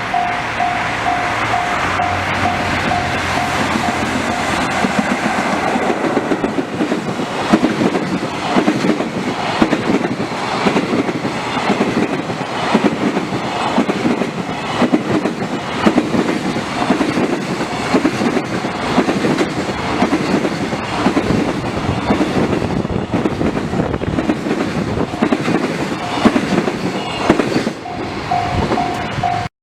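Freight train hauled by an EF66 electric locomotive passing close by: its wagon wheels clatter over the rail joints in a long, fast, even rhythm. A level-crossing warning bell rings about three dings a second at the start and again near the end.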